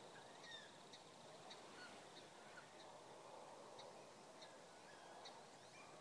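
Faint calls of distant birds: a short high note repeating about every half second, with a few scattered lower falling calls.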